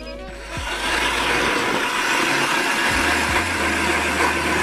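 StrikeMaster Lithium 40V battery-powered ice auger drilling down through snow and ice, its electric motor running under load as the bit cuts. It starts up about half a second in and then runs steadily.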